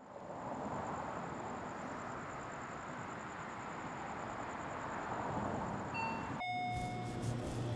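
Steady outdoor ambience, an even rushing hum like distant traffic. About six seconds in, a two-note electronic shop-door entry chime sounds, a higher note then a lower one. After the chime a low steady hum takes over, typical of a convenience store's drink coolers.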